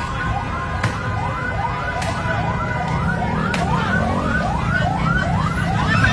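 Several emergency-vehicle sirens sound at once in quick repeating rising sweeps, about two a second, over a dense low din of street commotion. Three short sharp cracks cut through in the first few seconds.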